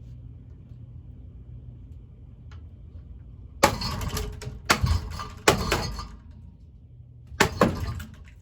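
Cheap ceiling fan motor running with a steady low hum, broken by four loud, sharp cracking hits against its spinning blades, the first about three and a half seconds in and the last near the end.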